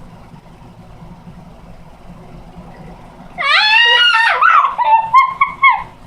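Low room hum, then about three and a half seconds in a young girl lets out a long high-pitched scream, followed by several shorter squeals.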